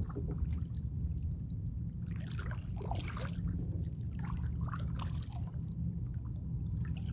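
Kayak paddle strokes: the blades dip into the water, splashing and dripping in a few irregular bursts from about two seconds in, over a steady low rumble.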